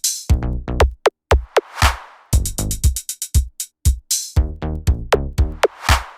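Electronic sound-check track: a fast, broken run of drum-machine hits, many of them booming bass tones that drop quickly in pitch, with a rising whoosh of noise about two seconds in and again near the end.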